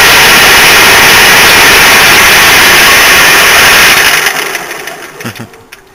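Lathe gear train and its 2 hp Brook electric motor running loud under power, a dense whirring clatter of meshing gears. About four seconds in it dies away over a couple of seconds as the drive is switched off and runs down.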